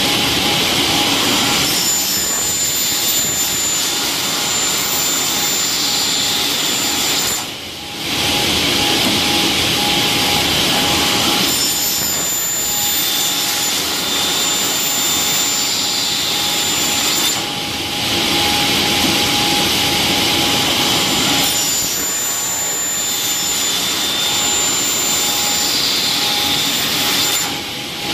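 SL500L automatic circular saw cutting aluminium: a loud, steady saw noise with a thin high whine, repeating in a cycle. The sound dips briefly about every ten seconds, three times in all.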